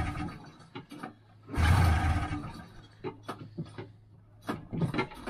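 Cold start of a Polaris TX340 snowmobile's two-stroke engine on full choke, cranked by its recoil starter rope. The end of one pull comes as the sound opens and a second full pull about two seconds in, with small clicks and knocks between; the engine does not catch.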